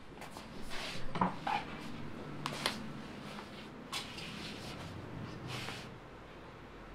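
Clothes being handled and tossed onto a bed: rustling fabric with a series of sharp clicks and knocks, thinning out near the end.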